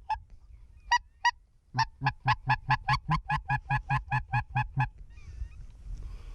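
Goose honking: a few single honks, then a fast, even run of about four honks a second for some three seconds, stopping about five seconds in.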